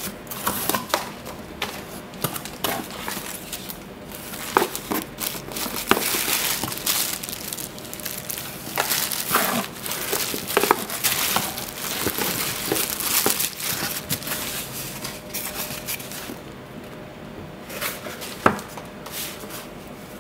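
Packaging being handled: plastic wrap crinkling, paper and cardboard rustling, and small knocks as hands dig through a cardboard shipping box and set its contents down. A single sharp tap near the end.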